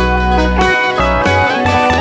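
Live band music: electric guitar picking a melody over keyboard chords, with low bass notes changing about every half second.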